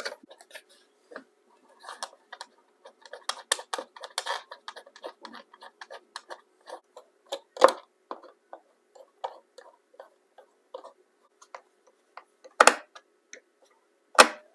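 Quick irregular clicks of a screwdriver driving screws into the bottom of a wooden radio cabinet, with a few louder knocks as the radio is handled, one about halfway and two near the end.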